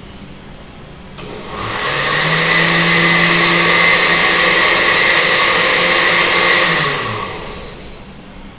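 Electric kitchen blender mixing egg yolks with a little milk. The motor spins up with a rising pitch a little over a second in and runs steadily for about five seconds. It then winds down and stops near the end.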